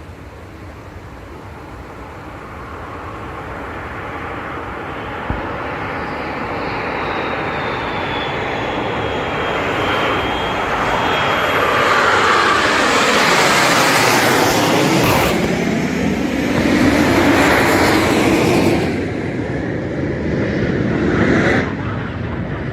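Fighter jet's engine roar growing steadily louder as it approaches, with a high whine that slowly falls in pitch, then the jet passing by about two thirds of the way through and the roar carrying on.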